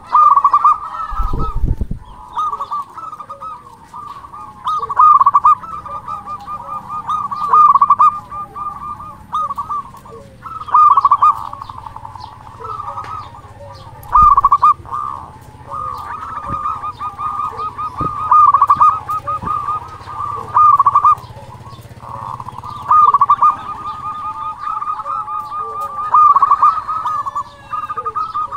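Zebra dove (perkutut), a local-strain bird in full song, repeating its staccato cooing song: bouts of rapid, rolling notes, each louder burst coming every two to three seconds.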